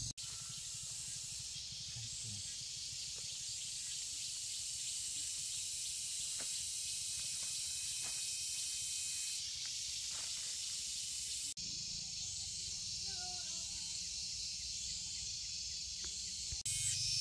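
Steady high-pitched chirring of insects, with a low rumble underneath. It breaks off for an instant about two-thirds of the way in and again near the end.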